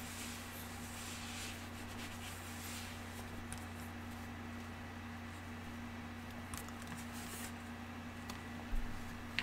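Room tone: a steady low electrical hum under even hiss, with a few faint clicks and a short low thump near the end.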